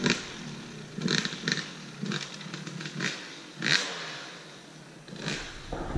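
Yamaha YZ250 two-stroke dirt bike engine revving in a series of short throttle bursts as it rides away, fading with distance.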